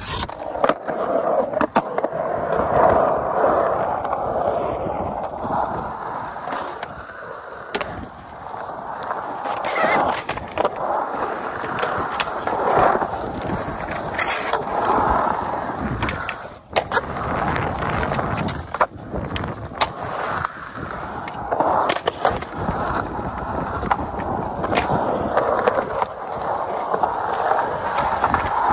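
Skateboard wheels rolling on a concrete bowl, a continuous rolling rush that swells and fades as the board carves the transitions. Sharp clacks and knocks of the board and trucks come now and then.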